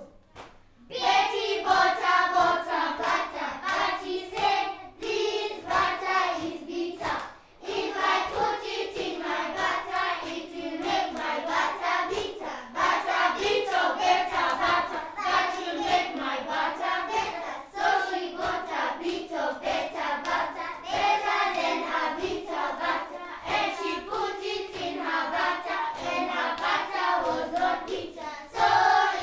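A group of young children singing together, starting about a second in, with short breaks between phrases.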